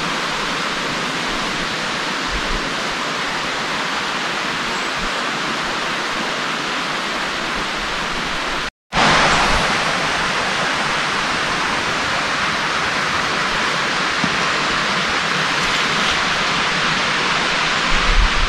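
Steady rushing of running water, like a burn or small waterfall beside the path. It cuts out for a moment about nine seconds in and comes back slightly louder.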